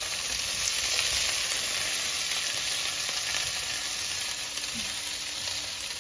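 Green beans and bell peppers sizzling in hot oil in a frying pan, the hiss starting suddenly as the beans go in and running on as the vegetables are stirred. It is loudest about a second in and eases slightly after.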